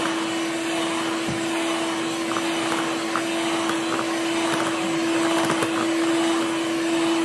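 Electric hand mixer running at a steady speed, its beaters whirring through thick butter-cake batter in a stainless steel bowl, with a constant motor hum.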